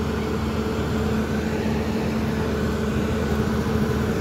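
Excavator's diesel engine running at a steady speed.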